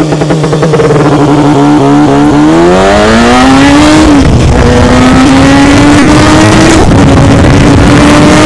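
Kawasaki Ninja ZX-6R's stage-3 tuned inline-four engine accelerating hard at full throttle. The note climbs steeply, drops at an upshift about four seconds in, then climbs again, with another small drop near seven seconds.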